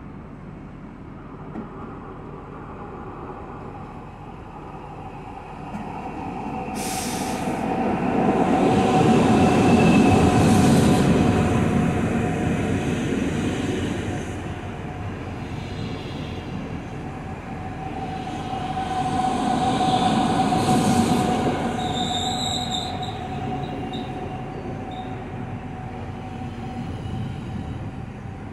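NS DDZ double-deck electric train arriving and running slowly past along the platform. It grows louder from about five seconds in and peaks twice, with a steady squealing tone over the rumble of the wheels.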